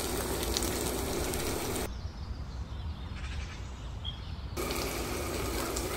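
Marinated mackerel pieces sizzling in hot oil in a stainless-steel pan, a steady even hiss. About two seconds in the sizzle gives way to a quieter, duller background with one short faint high chirp, and the sizzle comes back near the end.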